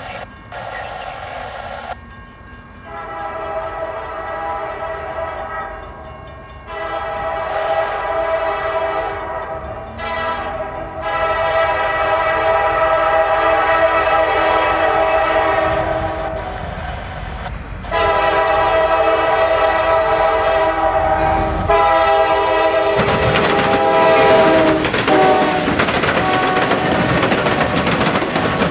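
A CSX diesel freight locomotive's air horn sounds a series of long blasts as the train approaches a grade crossing. Near the end the locomotive passes close by with loud rumble and wheel clatter.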